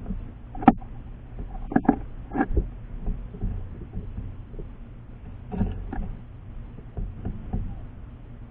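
Irregular taps, clicks and scrapes close to the microphone of a feeder camera, with a few louder knocks in clusters: small animals, most likely birds, pecking seed and moving about on the feeder.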